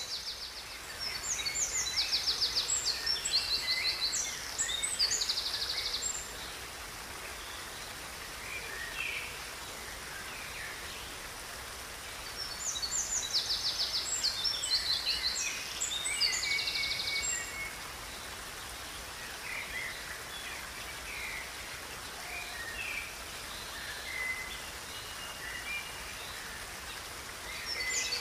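Birds singing over a steady rush of running water. One bird sings the same long, trilling song phrase twice, about ten seconds apart, with scattered shorter calls from other birds between.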